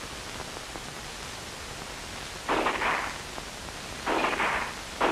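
M2 carbine in .30 calibre fired on semi-automatic: three single shots, the first about two and a half seconds in and the last two about a second apart, over a steady hiss from an old film soundtrack.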